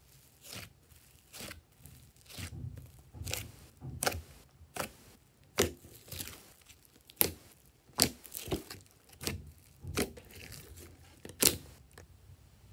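Foamy slime in a glass dish being pressed and poked with fingers, giving a series of sharp wet pops and squelches from trapped air, roughly one a second.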